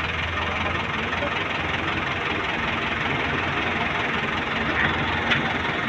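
Volvo EC210B excavator's diesel engine running steadily, with a constant low hum under a broad mechanical rush.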